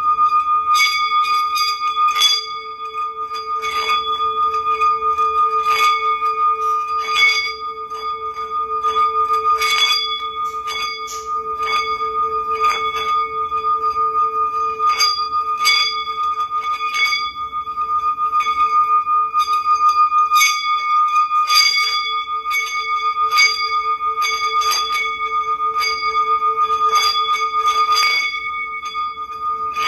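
Hand-held singing bowl struck again and again with a mallet, about once or twice a second, each stroke landing on a steady ringing tone that never dies away, with a lower hum beneath it.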